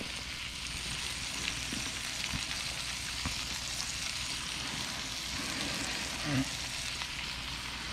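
Chicken breasts frying in a pan: a steady sizzle with a few faint pops.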